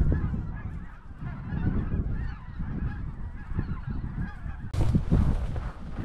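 A large flock of geese calling overhead, a dense chorus of many distant honks over wind rumbling on the microphone. About five seconds in, a loud burst of wind noise buffets the microphone.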